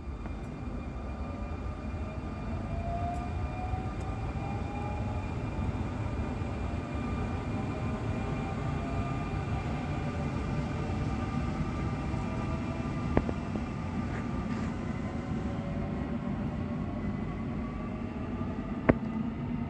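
SNCB M6 double-deck electric train pulling out, its traction motors whining in several tones that rise slowly in pitch as it accelerates, over a steady rumble. Two sharp clicks, one about two-thirds of the way through and one near the end.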